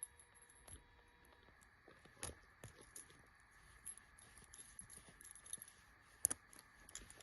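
Faint, scattered light clicks and taps, with a sharper click about two seconds in and the loudest one about six seconds in.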